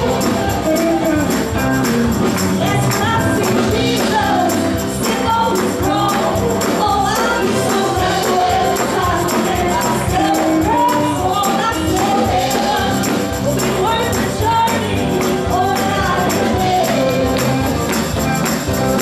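Gospel song with voices singing over a tambourine shaken and struck in a steady beat.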